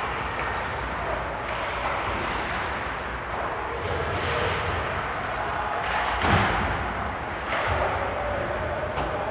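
Ice hockey game in an arena: steady rink noise of skates and sticks from play at the far end, with a loud knock about six seconds in.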